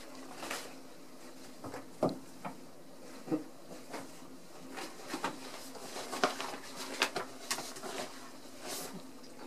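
Ragdoll kittens' paws and claws tapping and scrabbling on a bathtub and its shower curtain: scattered light clicks and scratches, busiest in the second half, over a faint steady hum.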